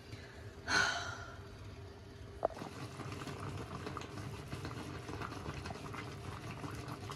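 A pot of food bubbling at a boil, with fine popping and crackling that grows busier after a small clack about two and a half seconds in.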